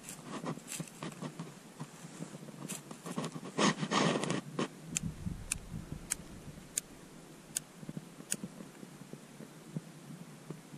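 Close handling noise at an ice-fishing hole: rustling and scraping of clothing and gear for the first few seconds, then a row of about six light, sharp clicks less than a second apart.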